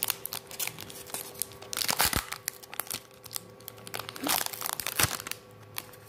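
Foil wrapper of a Pokémon trading-card booster pack crinkling and crackling in the hands as the cards are pulled out of it, with a few louder crackles partway through.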